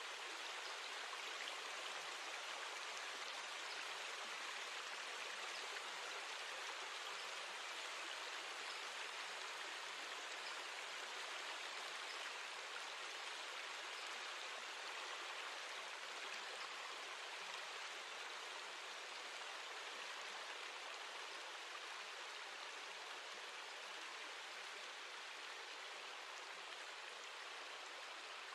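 Recorded water ambience track: a steady, even hiss of running water and rain, with no music or voice over it.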